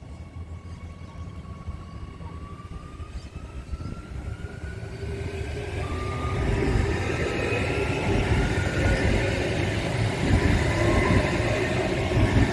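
Adelaide Metro 4000-class electric multiple unit approaching and passing close by. Its traction motors give a whine that rises slowly in pitch over the rumble of wheels on the rails, and the sound grows louder until about halfway through, then stays loud as the train goes past.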